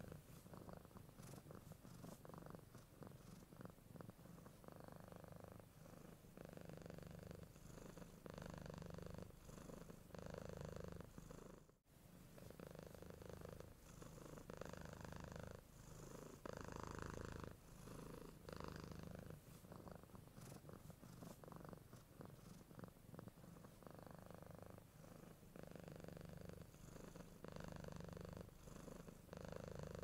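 Domestic cat purring softly and steadily, swelling and easing with each breath in and out, about one cycle every two seconds. There is a brief dropout about twelve seconds in.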